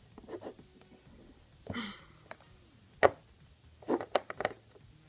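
Scattered small clicks and taps of plastic Littlest Pet Shop figurines being handled against wooden toy furniture, the sharpest a little after three seconds in and a quick cluster near four seconds.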